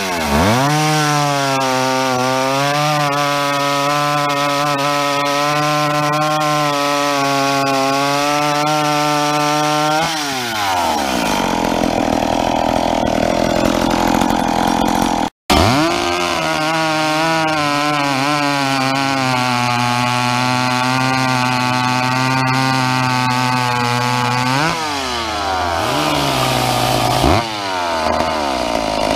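Old two-stroke chainsaw held at full throttle while bucking rounds off a log, its revs dropping back about ten seconds in. After a brief break it revs up and cuts again for about nine seconds, then the revs fall and pick up a couple of times near the end.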